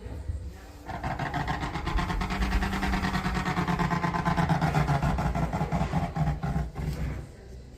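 Electrolux clothes dryer running with the abnormal noise under diagnosis: a steady, rapid rough rattle. It gets louder about a second in and drops away about seven seconds in.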